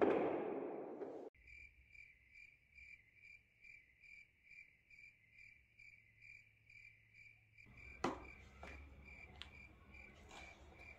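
A cricket chirping steadily, a short high chirp repeated about two to three times a second. A loud sound fades out during the first second, and a few soft knocks come in from about eight seconds on.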